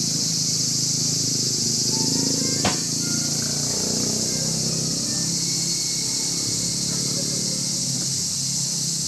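Steady high-pitched drone of insects, with a low rumble underneath and one sharp click a little under three seconds in.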